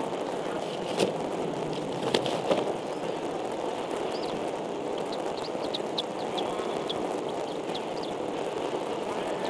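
Steady outdoor hiss from an eagle-nest camera microphone, with a few sharp knocks in the first few seconds. From about four seconds in comes a quick string of short, high bird chirps.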